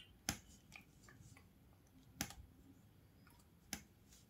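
A few sharp, sparse clicks, about three, in a quiet room: an Alexandrine parakeet working its beak and claws as it nibbles a child's finger while perched on a wire cage.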